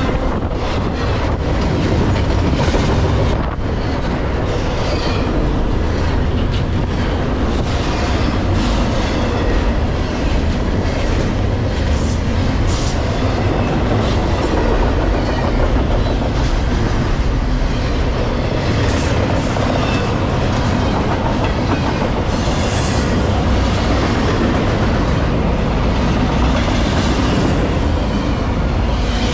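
Double-stack intermodal container well cars rolling past on steel wheels, with a steady rumble and a rapid clacking of wheels over the rail joints. A few brief high-pitched wheel squeals come through along the way.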